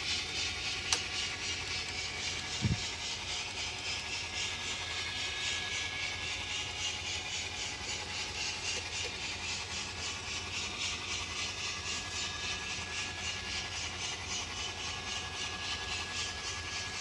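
Model locomotive's DCC sound decoder playing a running locomotive sound through its small onboard speaker: a steady hiss pulsing rapidly and evenly over a low hum. A single sharp click comes about a second in, and a short thump comes near three seconds.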